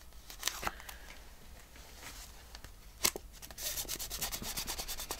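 Paper rustling as hands handle and rub a piece of card stock on a tabletop, with a sharp tap about three seconds in and a quick run of scratchy rubbing strokes near the end.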